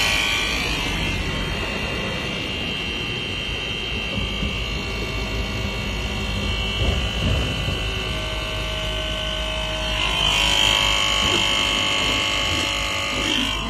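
Electric cab-tilt pump motor of a Hino 700 truck running steadily with a whine as the cab is raised. It grows louder and shriller about ten seconds in, then eases off near the end.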